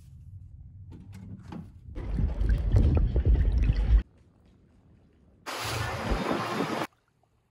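Outdoor wind and rushing noise in short clips that cut off abruptly: a loud, deep rumbling rush lasting about two seconds, then about a second and a half of hissing rush from a boat out at sea towing a parasail.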